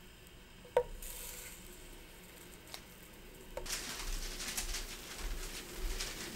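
Taro rice cakes pan-frying on low heat in a little oil in a nonstick frying pan. About a second in there is a sharp tap on the pan, then a faint sizzle. From a little past halfway the sizzle grows louder, with the oil crackling.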